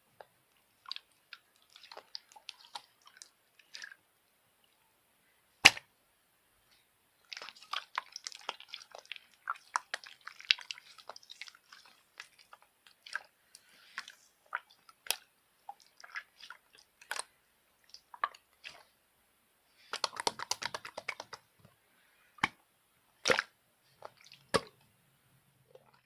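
Close-up crackling and clicking in irregular clusters, with several single sharp taps in between.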